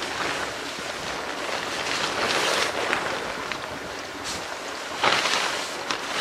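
Tarp fabric rustling as it is handled and pegged down, with steps crunching in powder snow; the rustle swells about two seconds in and again about five seconds in.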